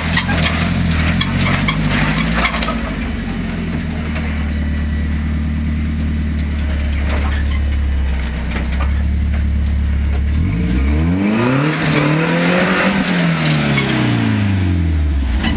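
Off-road truck engine idling steadily, then revving up and back down over about four seconds near the end, with a few knocks in the first couple of seconds.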